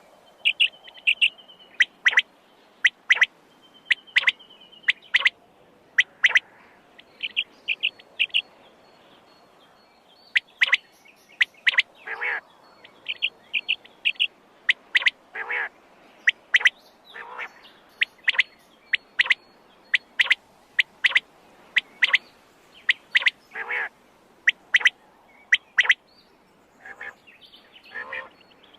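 Quail calling: short, sharp, high chirps repeated in quick runs of two to four, with some lower, longer notes between the runs.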